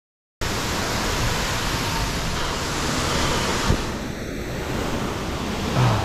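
Steady rushing of a waterfall into a rock pool, cutting in suddenly about half a second in, with one brief knock a little past halfway.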